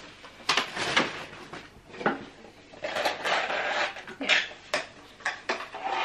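Handling noise: sharp clicks and knocks mixed with bursts of rustling, as a plastic pushchair cup holder and a paper instruction sheet are handled. The rustling is thickest about three to four and a half seconds in.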